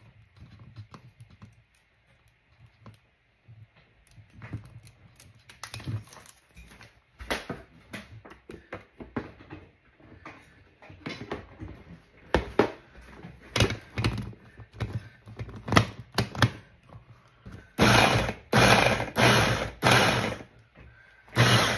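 Scattered clicks and knocks of parts and utensils being handled on a countertop, then near the end four short pulses of the Hamilton Beach hand blender's motor driving the chopper attachment, chopping tomatoes.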